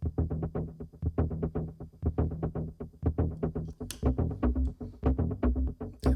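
Eurorack patch playing: percussion samples from a Rossum Assimil8or struck through a Mutable Instruments Rings resonator, giving a fast, even stream of short pitched hits, about eight a second, over low ringing tones. The low pattern shifts about halfway through, and a brief bright hiss comes in about four seconds in.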